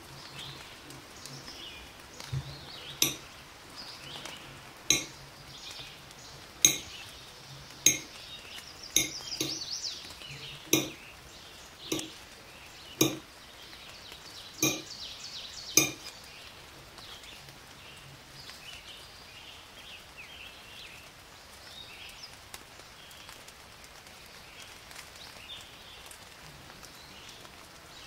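Knife slicing a peeled banana on a ceramic plate, the blade knocking sharply on the plate about ten times, roughly once a second, then stopping partway through.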